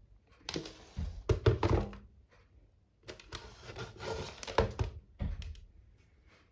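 Handling noise from a vintage Xpelair Taurus T8 desk fan: its plastic housing and wire guard knock and rattle as it is turned over and set down on a hard floor. There are two clusters of thunks, each over a second long, and a shorter knock near the end.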